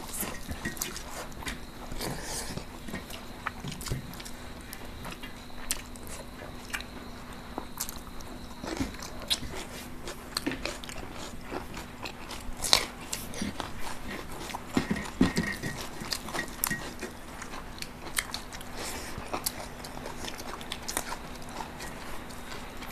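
Close-miked eating sounds of rice and chicken curry eaten by hand: chewing and lip smacks, with scattered clicks and scrapes of fingers on metal plates.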